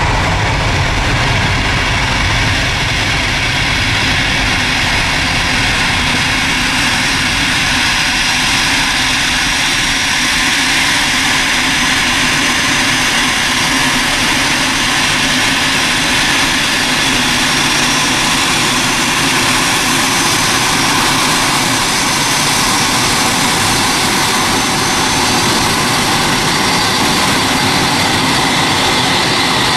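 Twin jet engines of an Airbus A330 at takeoff power: a steady rushing jet noise with a high whine. The deep rumble fades over the first several seconds as the aircraft climbs away, and the high jet noise holds on.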